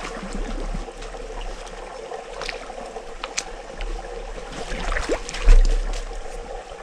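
Small waves lapping and trickling at the lake's edge, with a dull low thump about five and a half seconds in.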